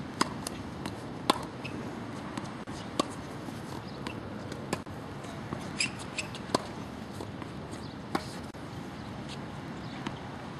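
Tennis ball bouncing on a hard court and struck by a racket: about eight sharp taps and knocks at irregular intervals, over a steady background hiss.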